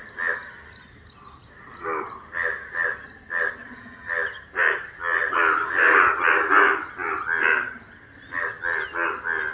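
Frogs calling in rain: harsh repeated croaks in overlapping bouts, thickest around the middle, over a steady high ticking about four times a second.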